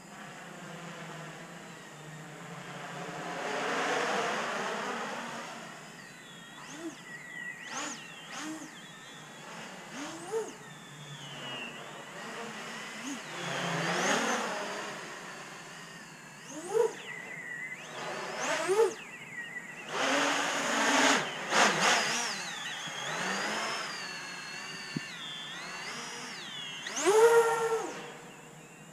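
800 mm X-Class racing quadcopter on 12S power flying overhead, its motors and propellers whining up and down in pitch with repeated sharp throttle punches and slower swells as it passes. The loudest punch comes near the end.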